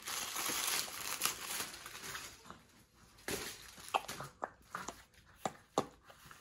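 Foil gift wrap crinkling and tearing as it is pulled off a small cardboard box. This is followed by a few sharp taps and knocks as the bare box is handled.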